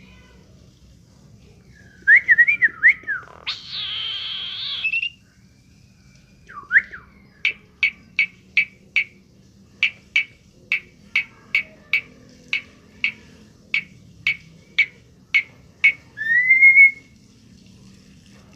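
Pet talking bird whistling and chirping. It opens with a warbling call and a harsh raspy sound, then gives a long run of short, sharp whistled notes at about two a second, and ends with a single rising whistle.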